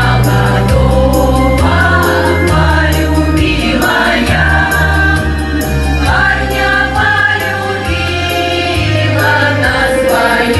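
A small group of amateur singers sings a song together over an instrumental accompaniment with held bass notes and a steady ticking beat.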